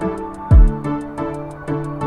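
Background music: plucked melodic notes over a steady ticking beat, with one deep bass-drum hit about half a second in.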